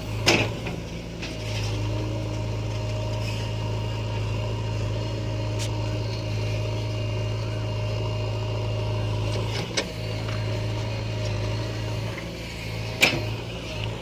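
A heavy diesel engine running steadily with a low hum. Three sharp metallic knocks cut through it: one right at the start, a smaller one near ten seconds, and a loud one near the end.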